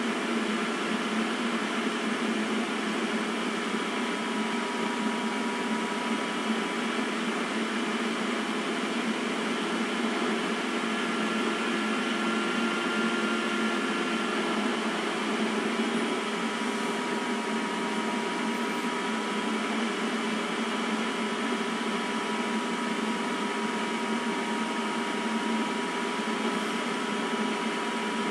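Steady mechanical hum with a few faint steady tones, unchanging throughout.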